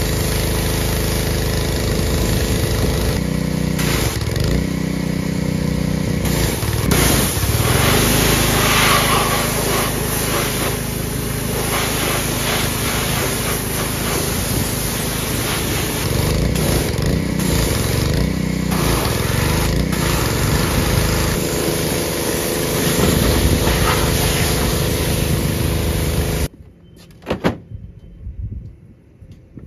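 Gas pressure washer running with its wand spraying water hard onto the mower's engine. The engine's pitch dips and recovers several times. It cuts off suddenly near the end, leaving quiet with a couple of brief sharp noises.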